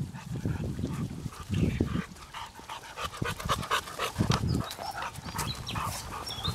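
Boxer dog panting as it walks on the leash, with footsteps on a dirt path.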